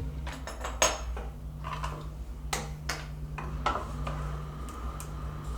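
Several separate light knocks and clinks of tools and wooden trim pieces being handled on a work surface, over a steady low hum.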